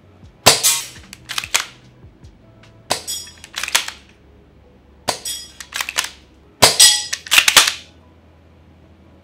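Amoeba AST-01 Striker spring bolt-action airsoft sniper rifle fired repeatedly in quick succession, with the short-throw bolt cycled between shots: a string of sharp cracks and clacks in clusters every second or two.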